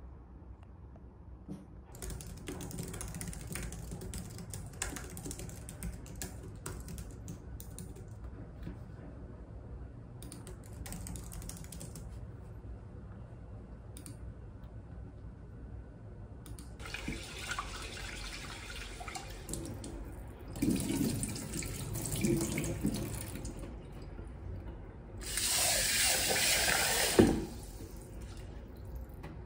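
Soft computer-keyboard typing and clicks, then water at a kitchen sink: water sloshing in a pot, and a tap runs hard into the pot for about two seconds near the end, stopping with a knock.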